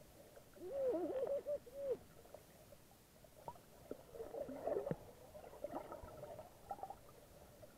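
Muffled underwater sound picked up by a camera held below the surface: faint water movement and bubbling with scattered clicks, and a wavering muffled tone for about a second near the start, with weaker bits of it later.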